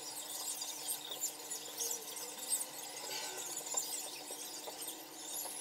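A small brush spreading liquid hair-system adhesive across a shaved scalp: soft, faint rubbing strokes with thin high squeaks.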